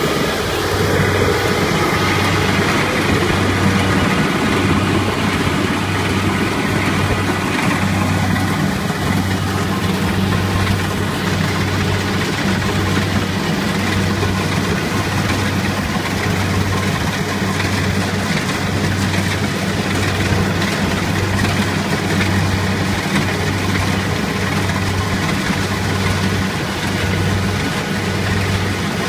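Kubota crawler combine harvester running steadily while cutting and threshing rice: a loud, even engine and machinery drone with a low hum that pulses about once a second.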